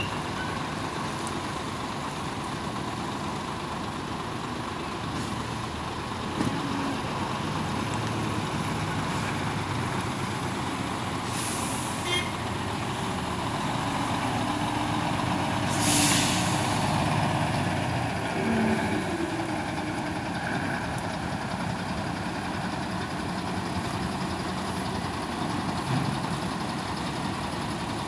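Heavy diesel trucks running, with a container semi-trailer truck pulling up close. Two short air-brake hisses come about eleven and sixteen seconds in, and the second is the loudest sound.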